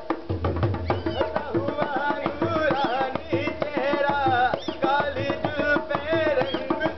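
Rajasthani folk music: a hand drum keeps up a fast, steady beat under a high melody line whose pitch swoops up and down.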